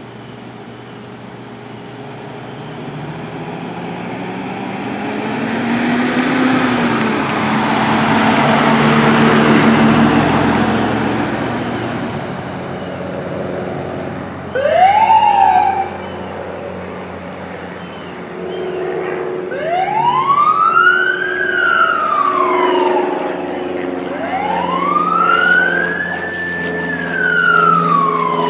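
Fire-rescue utility pickup pulling away, its engine and tyres growing loud and then fading. Its electronic siren then gives a short rising whoop and goes into a slow wail, two long rise-and-fall cycles.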